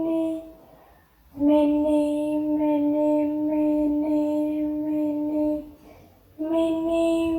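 A high, child-like voice holding one long sung note at a steady pitch for about four seconds. It is the same note each time, breaking off twice and starting again as if looped.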